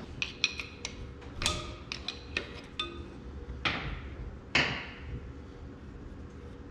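A hand tool clicking and clinking on the valve body of a tractor power-shift transmission as the pressure regulator is opened to change its shims. Quick, irregular sharp metal clicks for the first few seconds, then two louder ringing clinks around the middle.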